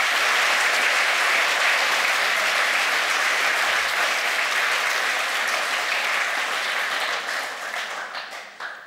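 An audience applauding, steady and loud, then dying away near the end.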